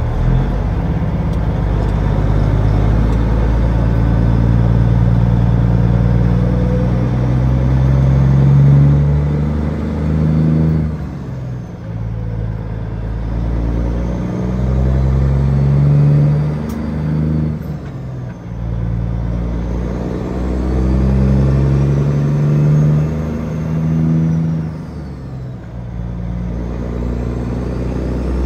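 Peterbilt 379 heavy truck's diesel engine pulling away through the gears: the engine note climbs, then drops with a short dip as it shifts up, three times.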